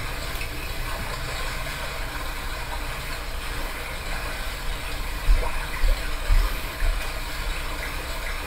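Steady rushing noise of an ocean-waves sound recording, with a few dull low thumps between about five and seven seconds in.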